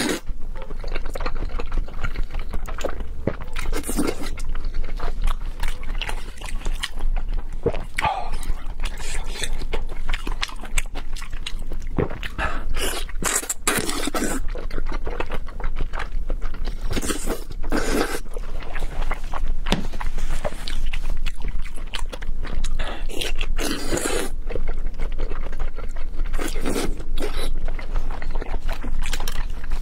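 Close-miked slurping and wet chewing of soft, sauce-soaked raw salmon slices, in short bursts every few seconds.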